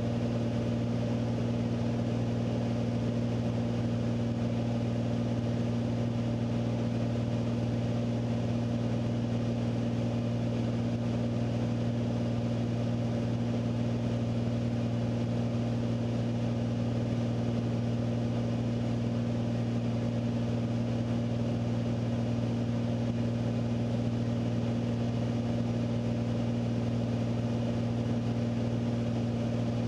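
Beechcraft Bonanza A36's six-cylinder piston engine and propeller droning steadily, heard inside the cockpit, with an even low hum that holds the same pitch and level throughout.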